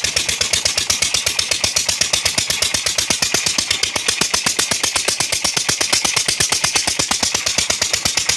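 An engine running steadily at an even, fast beat of about ten pulses a second, over the hiss of water gushing from a pipe and splashing into a tank of carrots being washed by hand.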